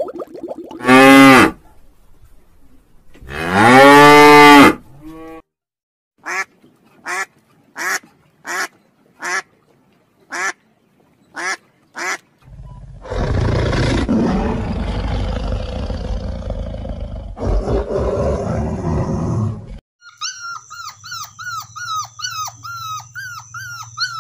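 A sequence of animal calls: a cow mooing twice with long calls, then a series of about ten short duck quacks at an even pace, then several seconds of loud rushing noise. Near the end, golden retriever puppies whine and yip repeatedly, each whine falling in pitch.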